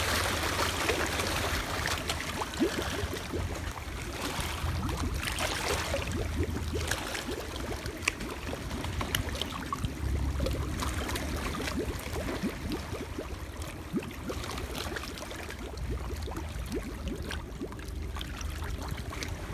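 Shallow seawater splashing and lapping around shoreline rocks, with water sloshing and gurgling as plastic bottles are dunked under the surface to fill with seawater.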